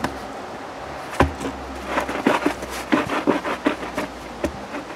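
Cardboard concrete form tube being lowered into a dirt footing hole and worked into place by hand: a thump about a second in, then a run of short knocks and scuffs.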